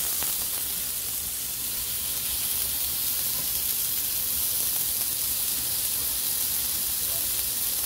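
Ribeye steak frying with a steady sizzling hiss.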